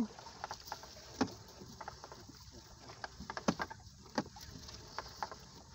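Gill net being hauled by hand over the side of a wooden outrigger boat: irregular knocks and rustles against the hull over a faint steady background.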